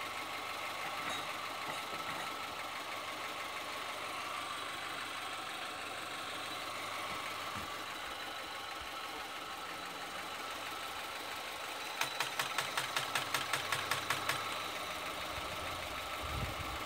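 An engine runs steadily throughout. About twelve seconds in, a rapid run of sharp clicks, roughly five a second, lasts about three seconds as the car is tried and fails to start.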